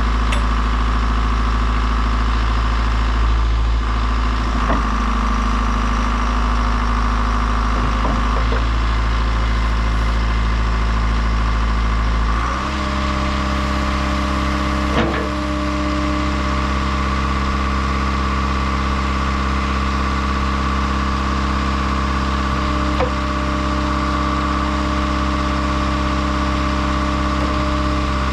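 John Deere 310 SL backhoe loader's diesel engine running steadily, its pitch stepping up to a higher speed about halfway through and holding there, with a few light clunks.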